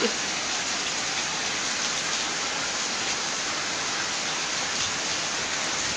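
Heavy downpour of rain falling steadily, an even hiss with no breaks.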